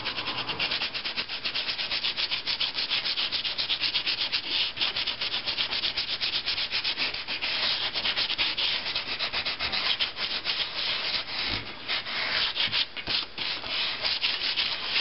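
Fine-grit sandpaper rubbed by hand in rapid back-and-forth strokes over a soft rubber Speedball Speedy-Carve carving block, a dry scratchy rasp: a light sanding that scuffs the shine off the block's surface to give it tooth. The strokes grow patchier, with short pauses, in the last few seconds.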